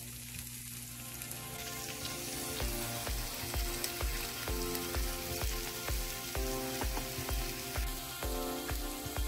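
Grated potato and zucchini pancakes sizzling in hot oil in a frying pan, a steady hiss. Background music with a steady beat comes in a couple of seconds in.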